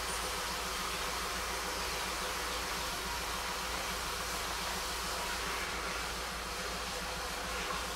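Steady outdoor background noise: an even hiss with a low hum underneath, with no distinct calls or knocks standing out.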